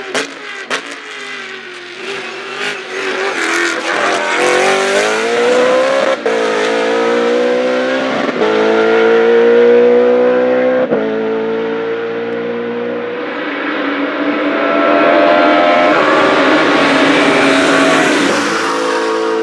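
BMW Z4 GT3's 4.0-litre V8 race engine accelerating hard. Its pitch climbs and drops at quick upshifts about 6, 8½ and 11 seconds in, then holds at high revs.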